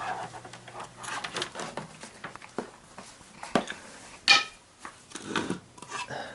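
Objects being handled and set down: scattered clicks and knocks, with a loud ringing metallic clink about four seconds in.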